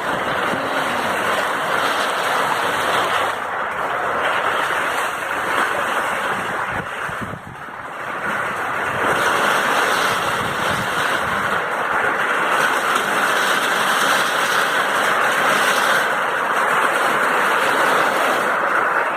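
Heavy rain falling in strong wind: a loud, steady hiss that eases briefly about seven seconds in, with wind buffeting the microphone.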